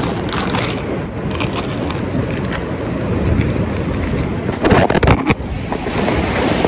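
Plastic bags crinkling and a plastic tub being handled close to a phone microphone, over steady wind rumble on the mic. A louder clatter of knocks near the end as the phone is picked up.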